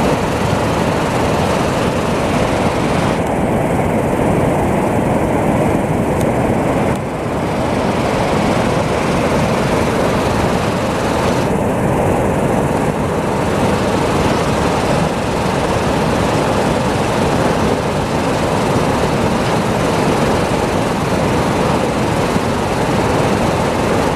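Flooded river water rushing over a low dam and churning into whitewater: a loud, steady roar of water.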